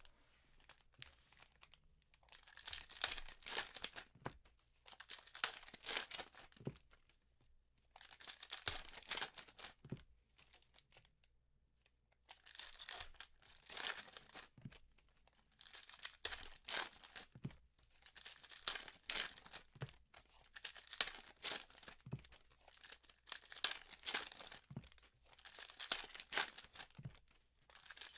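Foil wrappers of Panini Prizm hobby football card packs being torn open and crinkled by gloved hands, pack after pack, in bursts with short pauses between them. A few light taps are mixed in.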